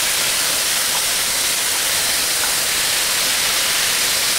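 Hot oil in an electric wok sizzling steadily as cubes of firm tofu are added to the frying ground pork.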